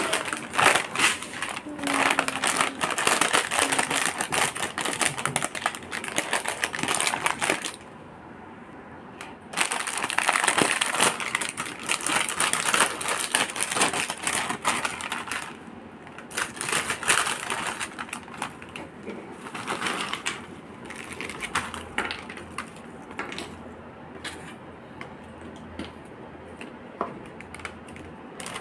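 Crinkling of Crunchiez Joker foil snack packets being handled, with fried snack chips rustling and clattering as they are poured from a packet into a bowl. The crackling comes in two long stretches broken by a short pause, then in shorter, scattered bursts.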